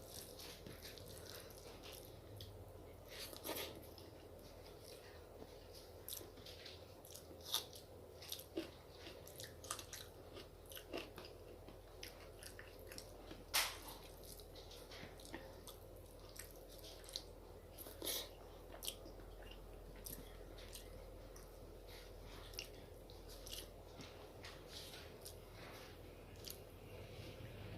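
A person eating close to the microphone: quiet chewing with scattered wet mouth clicks and smacks, a few sharper clicks standing out, the loudest about halfway through.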